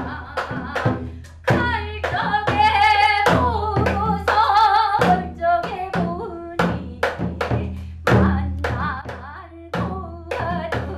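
Korean folk singing with a wavering vibrato, accompanied by repeated strokes on a Korean drum.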